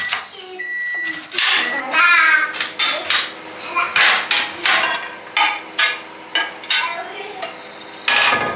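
Kitchen work sounds: a knife knocking on a cutting board and cookware clattering in irregular knocks, with a high electronic appliance beep about a second in.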